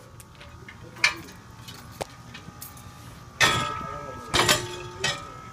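Metal clanks and knocks on a ladder at a roof edge. The loudest hit, about three and a half seconds in, rings on briefly, with a few lighter knocks before it and another clank near the end.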